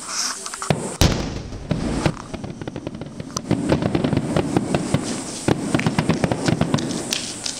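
A large aerial firework shell bursting with one deep boom about a second in, followed by several seconds of rapid crackling and popping.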